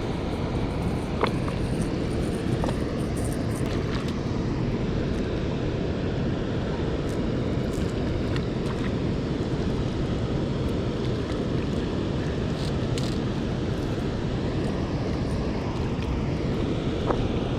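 Steady low roar of water rushing through a spillway, with a few faint ticks over it.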